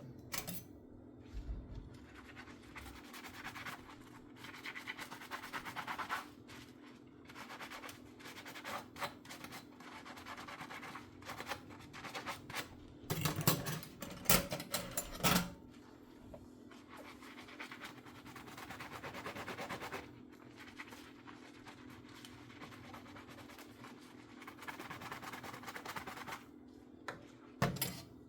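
Dishes being scrubbed by hand with a sponge in short stretches, a dry scratching rub. About halfway through comes a cluster of clinks and knocks of dishware, with another brief knock near the end.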